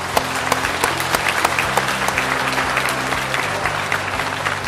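Audience applauding, a dense run of clapping, over music with held low notes.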